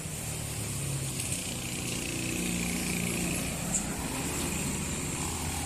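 A road vehicle's engine running steadily as traffic passes on an uphill road, its hum strengthening and rising slightly in pitch about two seconds in.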